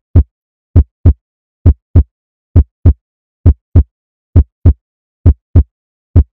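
Heartbeat: a steady lub-dub of paired low thumps, about seven beats at a little over one a second.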